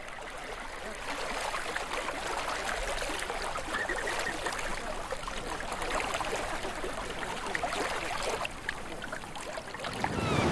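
A large flock of flamingos wading in shallow water: steady splashing and trickling, full of small crackles, with a faint call now and then.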